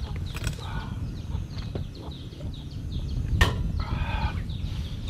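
Small birds chirping over and over in short falling notes, with a brief call from a chicken about four seconds in. A single light knock comes just before it.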